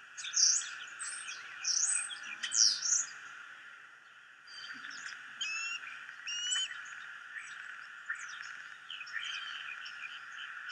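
A starling singing a rambling song: loud swooping whistles in the first three seconds, then quieter chatter of quick repeated notes, chirps and clicks, over a steady background hiss.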